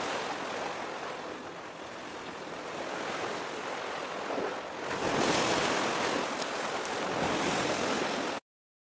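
Sea waves washing, with wind, a steady rushing noise that swells louder about five seconds in and cuts off suddenly near the end.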